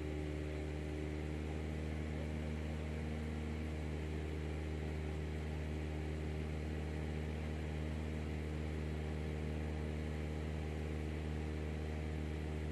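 Steady engine hum from the aircraft filming the eruption from above: an even, unchanging drone with a hiss over it.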